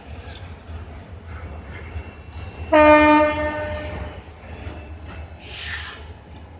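Container freight train rolling past with a steady low rumble. About three seconds in, a locomotive horn gives one short, loud blast that fades away over about a second. A brief hiss near the end.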